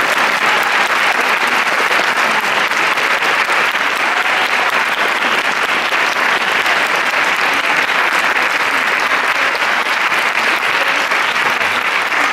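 Audience applauding, a dense, steady clapping that holds at the same level throughout.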